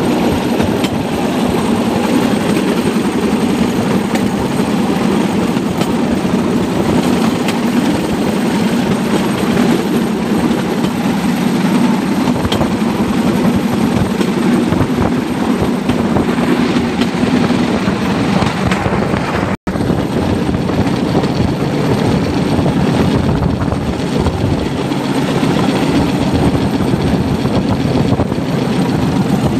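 Bamboo train (norry) running along the rails, its small engine going steadily. The sound cuts out for a split second about two-thirds of the way through.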